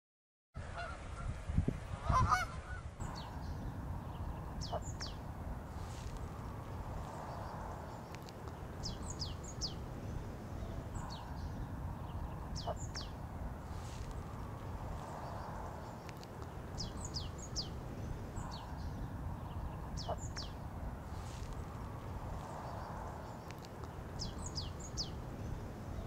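Canada geese honking loudly about two seconds in. After that, a small songbird calls over and over in short, high, falling chirps in quick runs of two to five, over a steady low background.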